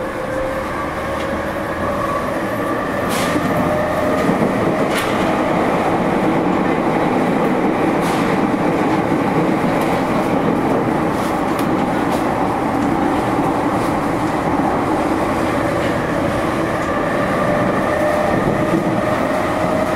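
JR East E231 series commuter train running through a subway tunnel, heard from inside the car: a steady rumble of wheels and motors with a whine slowly rising in pitch as the train gains speed. Scattered sharp clicks of the wheels over rail joints come in the first half.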